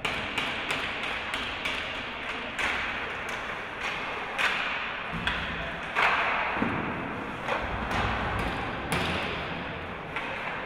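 Hockey play: a string of sharp clacks and knocks from sticks and puck, with a few short noisy bursts over steady rink noise.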